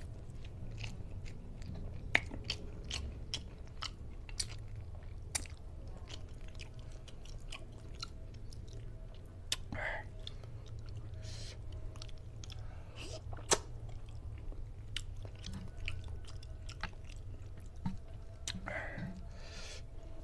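A man chewing mouthfuls of rice and fish: many wet smacks and clicks, with a few sharper clicks standing out, over a steady low hum.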